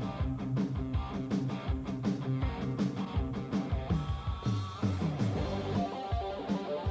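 Rock-style music with guitar over a steady drum beat.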